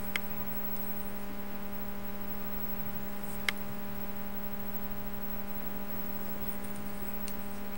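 Steady electrical hum with hiss, the background noise of the recording, broken by two faint clicks, one just after the start and one about three and a half seconds in.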